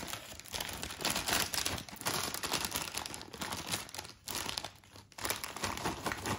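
Plastic snack packet crinkling as it is handled, in bursts with a couple of short pauses, while a small wrapped gift is pulled out from among the snacks.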